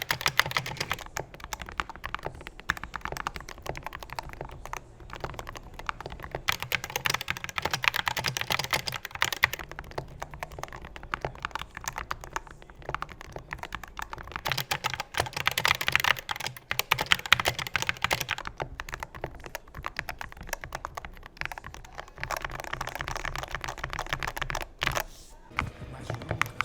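Typing on an Epomaker SK64 mechanical keyboard, its switches and stabilizers lubed: fast, dense key clicks in bursts.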